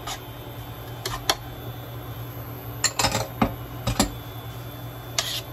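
A wooden spatula knocking and scraping in a non-stick frying pan as chopped onion and butter are stirred, with a handful of short sharp taps scattered through and a brief scrape near the end.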